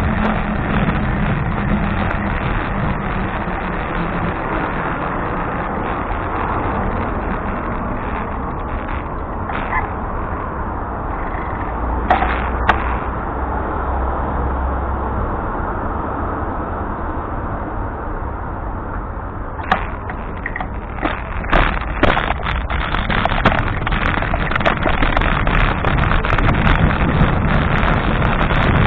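Steady wind and road noise on a bicycle-mounted camera's microphone during a night ride, with a car passing about halfway through. Scattered sharp clicks and knocks come in the second half.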